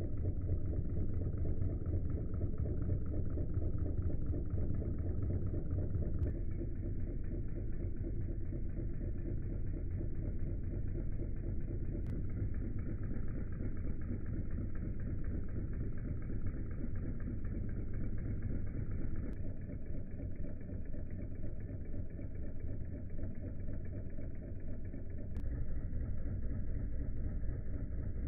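Wilesco D16 model stationary steam engine running steadily, heard slowed down: a continuous, muffled, low mechanical churning with no breaks.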